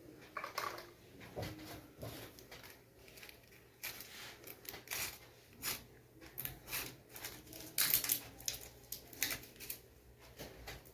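Irregular light clicks, taps and rustles of small objects being handled by hand.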